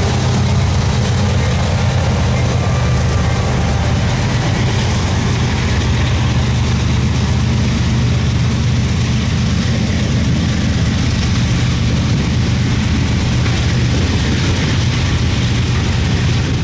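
CSX freight train passing close by: the trailing diesel locomotive goes by, then double-stack intermodal container cars roll past in a steady low rumble of wheels on rail.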